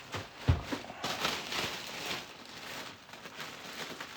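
A large plastic packaging bag rustling and crinkling as its contents are handled, with a single dull thump about half a second in.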